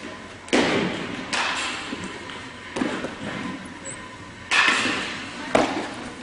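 Baseball catch practice: about five sharp impacts of baseballs smacking into leather gloves, each ringing on briefly in the hall's echo.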